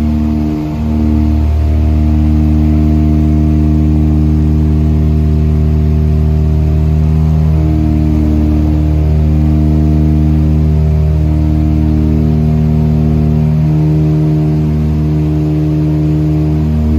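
Small propeller plane's engines droning steadily in cruise, heard from inside the cabin, with a slow waver in the tone.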